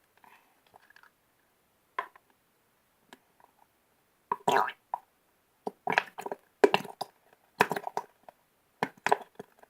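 Squeeze bottle of Mona Lisa slime glue being emptied, the thick glue and trapped air forced out in short spurts of sound. A few faint ones come early, then roughly one every half second from about four seconds in.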